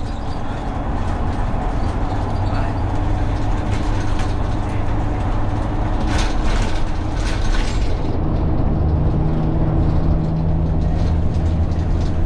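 Dennis Dart single-deck bus under way, heard from on board: the engine hums steadily with a few rattles around the middle, and about eight seconds in its note changes as a lower tone comes in.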